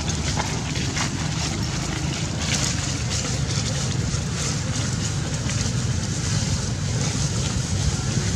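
Steady wind noise on the microphone: a low rumble under a hiss, with a few faint ticks.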